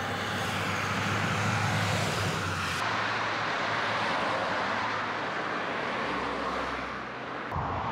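Road traffic on a main road: cars passing at speed, a steady rushing noise of tyres and engines. The sound changes abruptly about three seconds in and again near the end.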